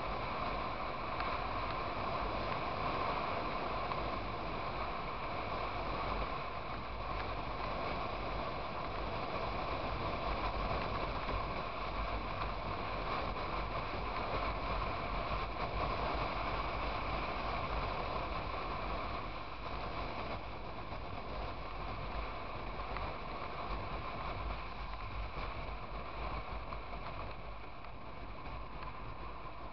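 Steady wind rush and road noise of a motorcycle at highway speed, heard through a bike-mounted camera, with a low rumble underneath; it eases off a little in the last third.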